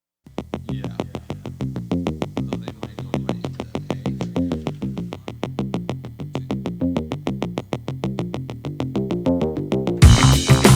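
Electronic synthesizer music with fast, evenly pulsing notes; near the end a louder, fuller section with heavy bass comes in.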